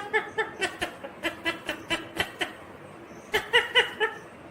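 Indian ringneck parakeet chattering in a quick run of short, clipped notes with sharp clicks among them, pausing briefly past the middle before a last short cluster.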